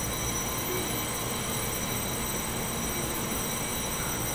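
Taiwan Railway EMU3000 electric multiple unit rolling along the platform track as it pulls out, a steady rumble of wheels and running gear.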